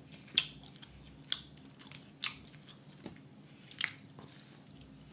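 Eating rotisserie chicken by hand: pulling meat off the bones and chewing, with five short, sharp smacking clicks about a second apart.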